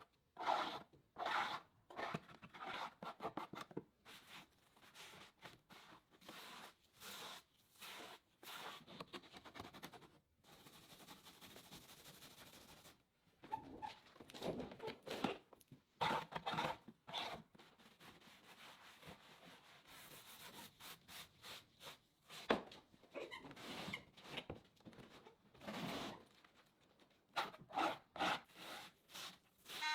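A hand tool or abrasive rubbing across wood in repeated short, irregular strokes, with a steadier stretch of rubbing about a third of the way through and one sharp click past the middle.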